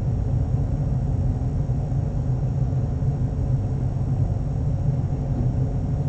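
A steady low rumbling drone, like the dark ambient bed of a horror soundtrack.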